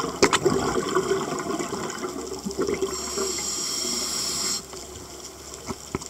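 A scuba diver breathing through a regulator, heard underwater. Exhaled bubbles gurgle for the first three seconds. About three seconds in comes a steady hiss of inhaled air through the demand valve, which cuts off suddenly about a second and a half later.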